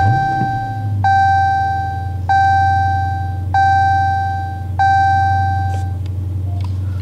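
Dodge Challenger Scat Pack's 6.4-litre 392 HEMI V8 just caught, its revs flaring briefly and settling into a steady low idle. Over it the dashboard seatbelt-reminder chime rings five times, one clear tone about every 1.2 seconds.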